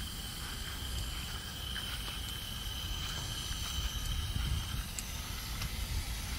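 Low, unsteady outdoor rumble with a light hiss, and a faint high steady whine for the first three and a half seconds.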